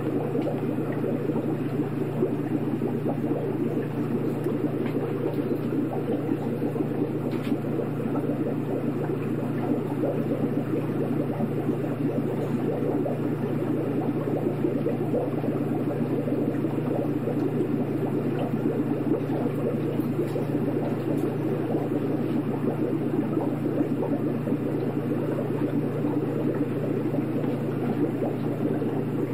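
Aquarium pump running: water bubbling steadily over a constant low hum.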